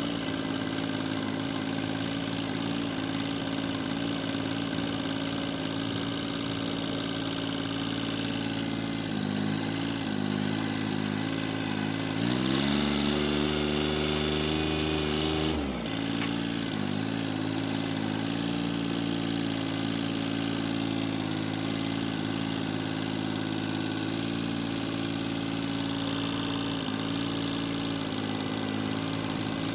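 John Deere 770 compact tractor's three-cylinder diesel engine running steadily, its speed rising for about three seconds midway, then dropping back to its earlier note.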